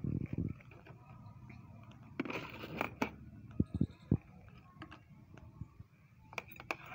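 Handling of an empty plastic bottle and its cap on a dimpled lid: knocks at the start, a rustling scrape about two seconds in, then a few sharp clicks as a pair of scissors is set down. More light clicks come near the end.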